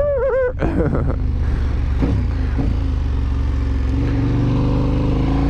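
KTM 1190 Adventure's V-twin with a full aftermarket exhaust, running steadily at low revs, then pulling with the revs climbing near the end.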